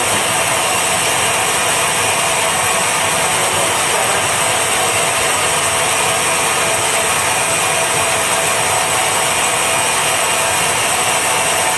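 Northfield 27-inch band saw with a 2 hp variable-pulley drive running steadily, the blade spinning free with no wood being cut.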